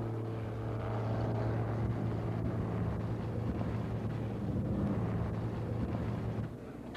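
A motor vehicle running with a steady hum over a rumbling noise, which drops away about six and a half seconds in.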